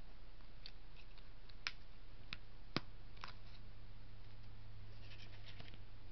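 A few sharp clicks from rotary leather punch pliers and a cardboard strip being handled, the loudest about three seconds in, followed by a quick run of small ticks near the end.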